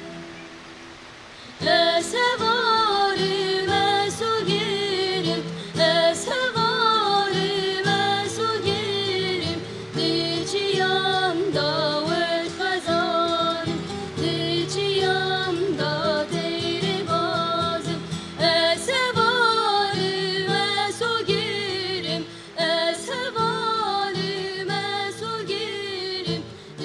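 Kurdish folk song: women's voices singing over a nylon-string acoustic guitar and a bağlama (long-necked saz). For the first couple of seconds the strings sound alone and more quietly, then the singing comes in, with long, ornamented melodic lines.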